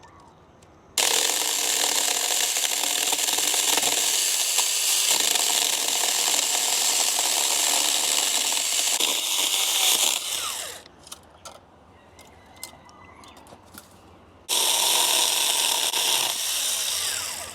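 Small 4-inch mini electric chainsaw running as it cuts through a branch: a steady, high-pitched buzz that starts about a second in and stops after about nine seconds, then runs again for about three seconds near the end. Scattered small clicks and snaps are heard in the pause between.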